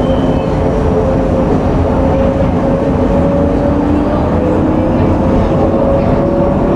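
Tram running along its track: a steady, loud rolling rumble with a few humming tones that rise slowly in pitch.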